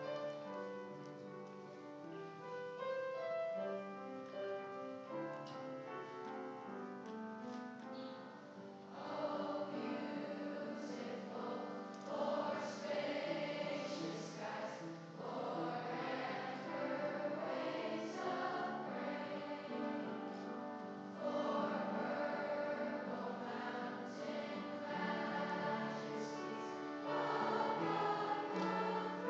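A school chorus singing with piano accompaniment. The piano plays alone at first, and the choir comes in about nine seconds in and grows louder toward the end.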